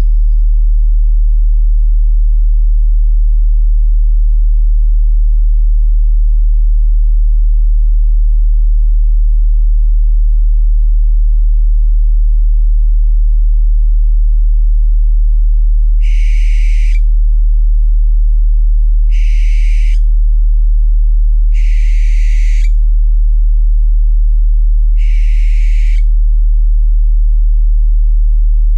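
A steady deep tone hums throughout, typical of a meditation tone track. From about halfway through, an owl calls five times over it, each call about a second long and roughly three seconds apart.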